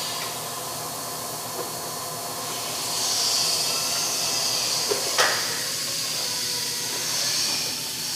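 Steady hissing noise that grows stronger about three seconds in, with faint steady tones underneath and a single sharp click about five seconds in.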